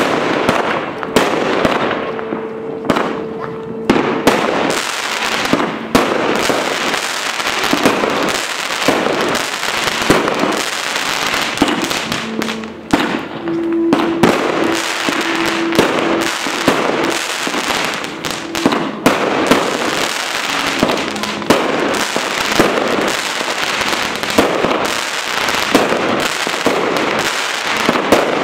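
A 200-shot firework battery (cake) firing shot after shot, with several bangs a second and crackling bursts without a break.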